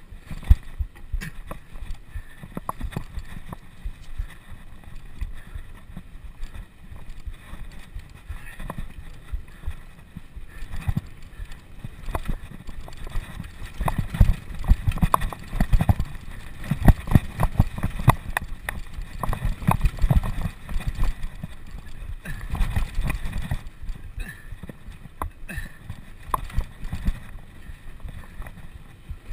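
Bicycle rattling and knocking as it is ridden over rough ground, over a low rumble. The knocks come thickest from about the middle of the stretch to near the end.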